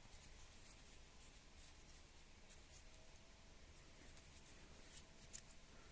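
Near silence, with faint light ticks and rubbing of a small part being handled and turned over.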